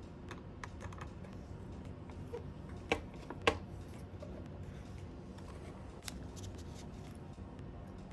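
A small screwdriver and the plastic propeller clicking and ticking as a DJI Mini 2 propeller screw is undone and the blade lifted off the motor hub. The ticks are light and scattered, with two sharper clicks about three and three and a half seconds in, over a faint steady hum.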